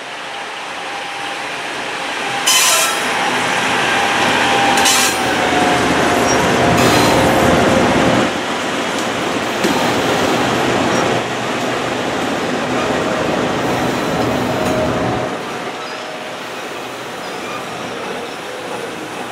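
A consist of four diesel-electric locomotives (GE ES44DC, GE C44-9W, EMD SD70 and GE AC4400CW) running past with a heavy engine rumble, a whine falling in pitch about four to seven seconds in, and two brief loud rushes of noise near the start. About fifteen seconds in the engine rumble drops away, leaving the lighter rolling noise of the container well cars.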